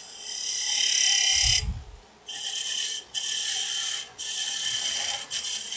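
Detail gouge cutting dry aspen on a wood lathe while shaping a bead at the base of a goblet cup. Each pass is a hissing cut with a steady high whine, starting with a longer, louder one and followed by about four shorter passes with brief breaks between them. A dull low thump comes about one and a half seconds in.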